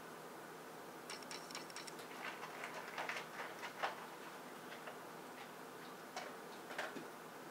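Faint, irregular small clicks and ticks over a steady background hiss, clustered in the first half and a couple more near the end.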